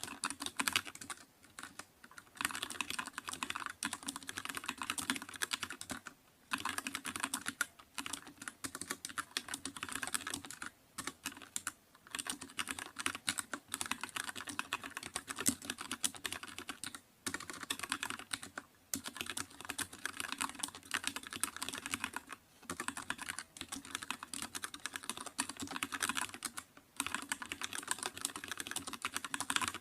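Fast, continuous typing on a computer keyboard, with rapid key clicks in runs broken by brief pauses every few seconds.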